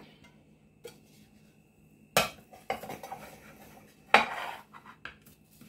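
A glass baking dish and a serving tray knocking and clattering as the dish is set on the tray and turned over. There are two sharper knocks, about two seconds in and about four seconds in, with lighter clinks between them.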